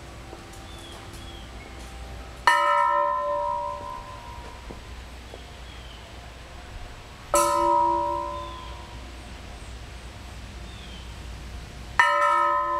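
A rocking bell made from an old steel nitrogen tank ringing three times, roughly every five seconds: each time it tips, a loose ball inside strikes it with a sharp clang, followed by a ring of several clear tones that fades over about a second and a half.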